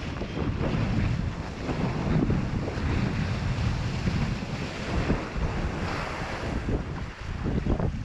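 Heavy wind buffeting an action camera's microphone, over water splashing and rushing against a windsurf board moving through choppy water.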